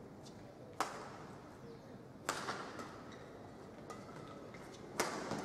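Badminton racket strings hitting the shuttlecock three times in a rally, each hit a sharp crack with a short echo, over steady hall noise.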